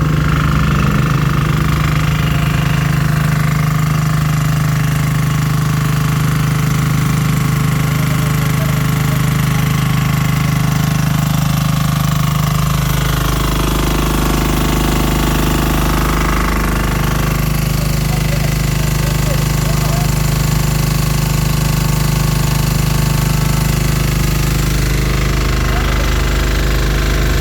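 Diesel engine of a heavy-duty pressure washer running steadily with a rapid, even clatter. About halfway through its sound gets deeper and fuller, then holds steady.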